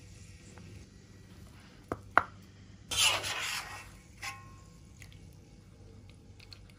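Metal slotted skimmer working in a metal wok as fried tomatoes, shallots and garlic are scooped out of the oil. Two sharp clinks about two seconds in, a short scrape about a second later, then one more clink that rings briefly.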